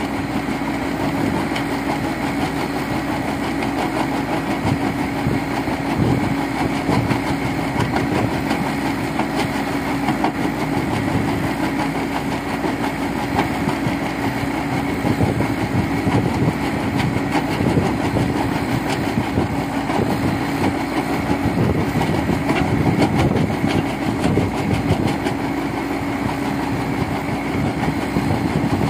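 Caterpillar backhoe loader's diesel engine running steadily under load, driving a hydraulic crusher bucket. It has a steady hum and a continuous rattle of stone being broken down into gravel.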